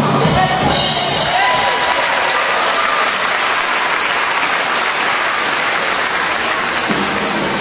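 Audience applauding over music; the clapping takes over about a second in and runs on as a dense, steady clatter.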